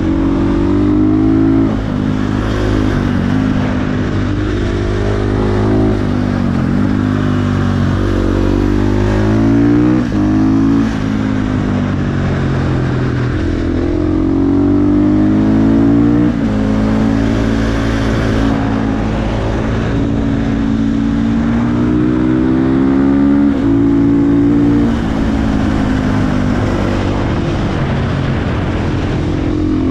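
KTM 450 supermoto's single-cylinder four-stroke engine, fitted with an aftermarket exhaust, pulling under way. Its pitch climbs and drops again and again as the bike accelerates, shifts gear and rolls off the throttle.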